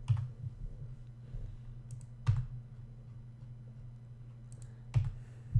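A few sharp, isolated clicks of a computer keyboard and mouse as a document is edited, four in all, over a steady low hum.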